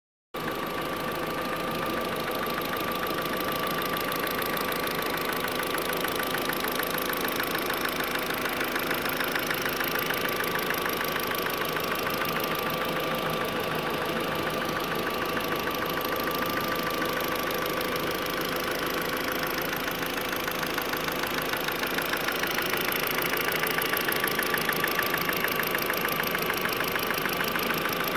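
VW 1.8T turbocharged four-cylinder engine running with a fast, even tapping from a knocking hydraulic lifter. The knock comes from wear on the camshaft.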